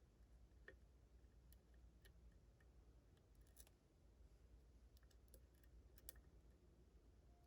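Faint, scattered light clicks of a lock pick working the pins of a Ruko 600 lock cylinder under tension, a dozen or so irregular ticks over a low hum.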